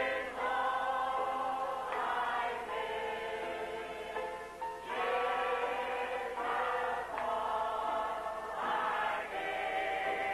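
Choir singing in long held chords with piano accompaniment, a gospel hymn.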